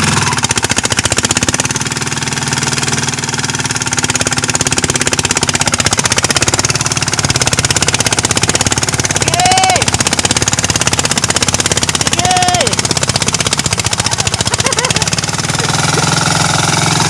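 A mud boat's single-cylinder engine runs steadily with a fast, even rattling knock. It is working under load, driving the mud wheel through deep, soft paddy mud.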